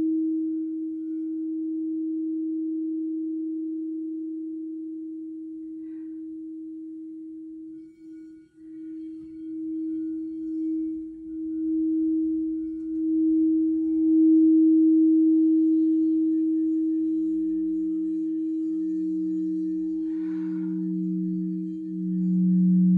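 Crystal singing bowls ringing. One bowl holds a steady tone that swells and fades in slow waves and nearly dies away about eight seconds in. A second, lower-pitched bowl joins about two-thirds of the way through and grows louder toward the end.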